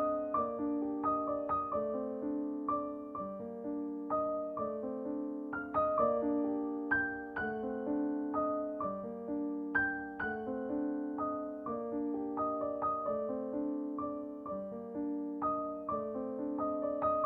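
Background piano music: a gentle, steady run of struck notes.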